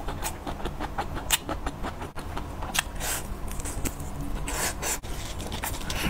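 Close-miked eating sounds as grilled meat is bitten off a wooden skewer and chewed: wet clicks and smacks at irregular intervals, with a couple of longer crunchy bursts, over a steady low hum.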